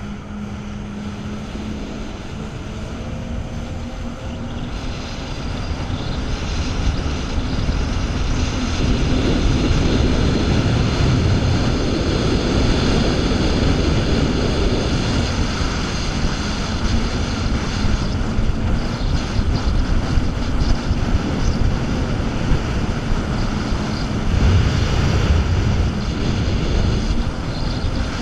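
Jet ski engine and water jet running at speed, a steady engine drone over the rush of spray and wake. It grows louder over the first ten seconds or so, then holds steady.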